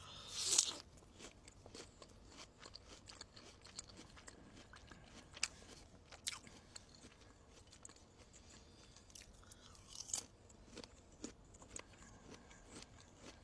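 A person biting into and chewing fresh guava: a bite about half a second in, then scattered faint crunches and mouth sounds of chewing.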